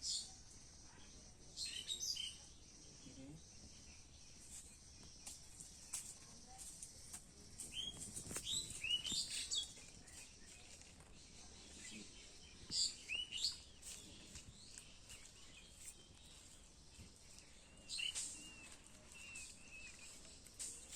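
Birds chirping in short clusters of high, quick calls, some sliding downward in pitch, with quiet pauses between bursts.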